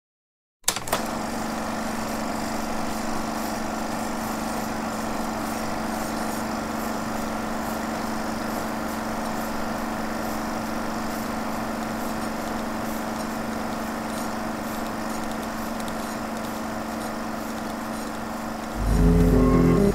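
Film projector running: a steady mechanical whir with a fine clatter, switched on with a click. Near the end, guitar music comes in over it.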